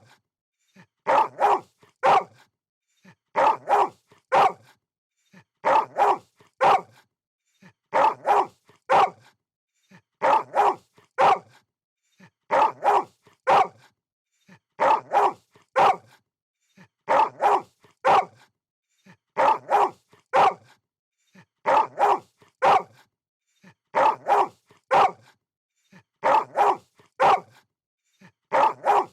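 Dog barking in quick groups of about three barks, each group repeating every two seconds or so with silence between, in an even looped pattern.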